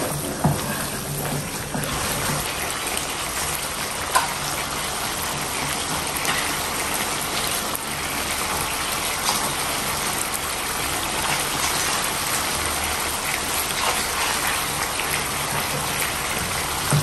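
Blended chili paste (sambal) frying in an oiled pan: a steady sizzle and spatter that sounds much like rain, with a wooden spatula stirring through it at the start and a single sharp knock about four seconds in.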